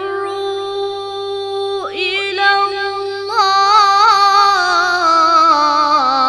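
A boy's voice reciting the Quran in melodic tajwid style, drawing out long ornamented notes. It holds one steady note, breaks briefly about two seconds in, then comes back louder with a wavering, embellished line that slowly falls in pitch near the end.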